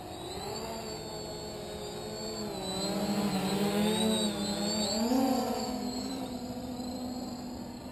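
SKY-Hero Little Spyder quadcopter on 4S power, its four Cobra 2217 950kv brushless motors with 10x4.5 propellers buzzing, pitch wavering up and down with throttle changes. It grows louder as the quad comes in close, loudest from about three to five seconds in, then fades as it climbs away.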